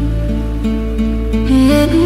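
Sufi ney flute music: a breathy melody of short low notes that steps up to a higher held note near the end, over a steady low drone.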